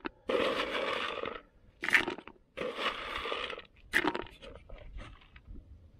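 Dry dumbbell-shaped carp bait pellets poured into a plastic bucket onto sweetcorn, in three short bursts of rattling. A few stray pellets tick down around four to five seconds in.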